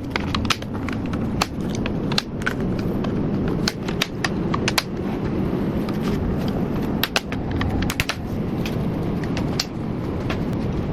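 Flame-retardant PVC lightbox frame pieces clicking and knocking as they are snapped together by hand: irregular sharp clicks, several close together in places, over a steady low background rumble.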